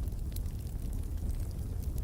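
Wood fire burning in a fireplace: a steady low rumble of flames with a few small, scattered crackles.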